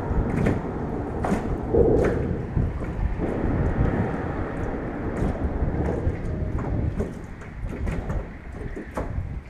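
Wind buffeting the microphone as a steady low rumble, with scattered small knocks and clicks from handling fishing gear in a boat.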